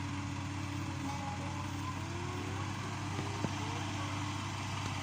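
Yanmar B37 mini excavator's diesel engine running steadily, with one sharp click about three and a half seconds in.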